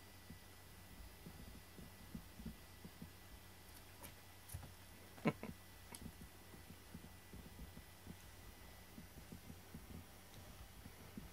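Faint low thumps and scuffs of two cats play-fighting, pawing and swatting at each other on a cardboard scratcher and wooden floor, with one sharper knock about five seconds in.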